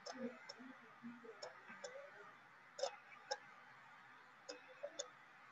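Faint, scattered clicks of a stylus tapping on a drawing tablet during handwriting, about eight separate taps, over quiet room noise.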